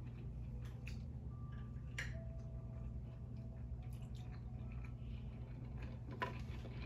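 Close-miked chewing of a mouthful of shrimp cheeseburger: soft wet mouth clicks and squishes, with a sharper click about two seconds in and again near the end, over a steady low hum.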